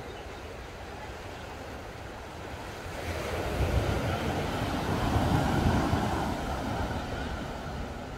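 Small ocean waves washing onto a sandy beach, mixed with wind rumbling on the microphone. The noise swells louder from about three seconds in and eases off again near the end.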